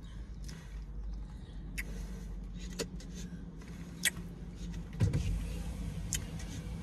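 Steady low hum inside a vehicle's cabin, the running engine of a parked SUV, with a few small sharp clicks and a soft thump about five seconds in.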